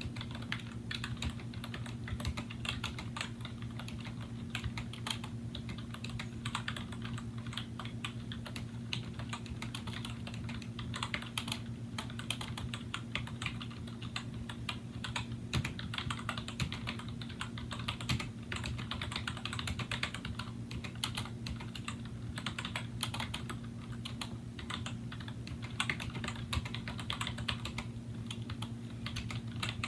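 Continuous fast typing on a 2000 Apple M7803 Pro Keyboard, a rubber-dome board with Mitsumi dome-with-integrated-slider switches: a dense, irregular patter of soft key clicks and bottom-outs. A steady low hum runs underneath.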